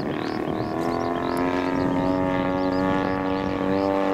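A large radio-controlled model airplane's motor spins up about a second in and then holds a steady, even pitch. Small birds chirp repeatedly over it.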